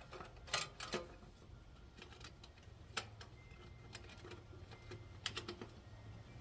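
Small hand clicks and taps on the generator's air-filter cover as it is closed and its fastener done up by hand: a few scattered light clicks, with a quick little run of them a little after five seconds.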